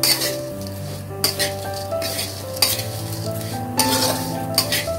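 Metal spatula stirring and scraping flattened rice as it fries in oil in a pan, with a light sizzle and several sharp scrapes or knocks against the pan about a second apart. Background music plays underneath.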